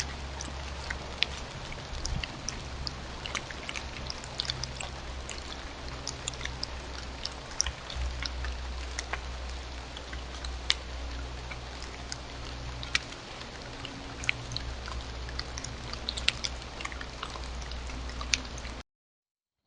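Raindrops ticking irregularly over a steady low hum. The sound cuts off abruptly near the end.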